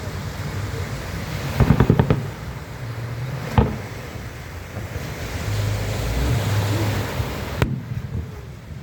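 Wind noise on the microphone at the seaside, broken by a quick string of firework bangs about two seconds in and a single sharp firework bang a moment later.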